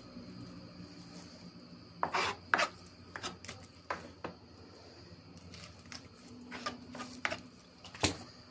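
Knife cutting and scraping through a raw salmon on a cutting board: irregular scrapes and knocks, two close together about two seconds in and a sharp knock near the end.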